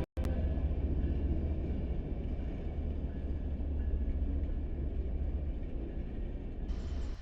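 Steady low rumble of a passing train, slowly fading away.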